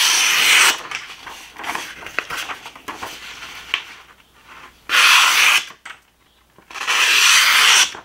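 HAN-313 folding knife's blade slicing through a sheet of paper in a sharpness test: three long slicing strokes, one at the start, one about five seconds in and one near the end, with quieter paper rustling and crackling between.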